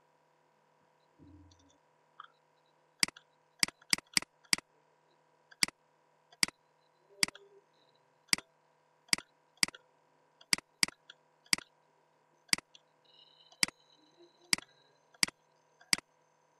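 Computer mouse button clicking repeatedly at an uneven pace, about twenty sharp clicks, stepping an on-screen voltage slider upward; a faint steady electrical hum underneath.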